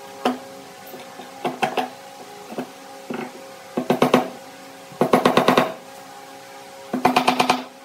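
Claw hammer driving small nails into a pine board: single knocks and quick runs of light taps, each run lasting about half a second.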